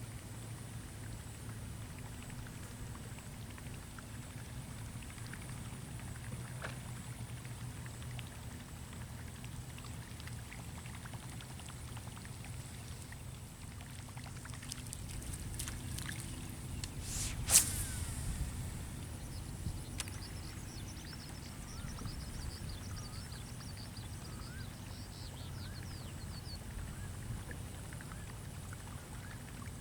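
Wind rumbling on the microphone, with light water splashing and a single sharp click a little past halfway.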